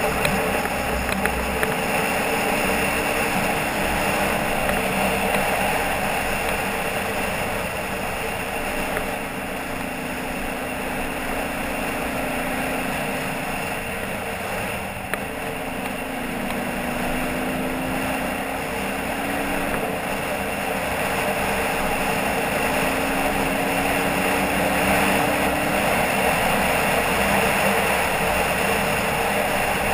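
Motorcycle engine running steadily while riding a dirt track, under a constant wash of wind and tyre noise; the engine note drifts up and down a little with the throttle.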